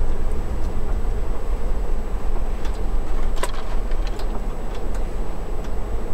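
Inside a moving car's cabin: steady low engine and road rumble with the heater fan running, and a few irregular small clicks and knocks around the middle.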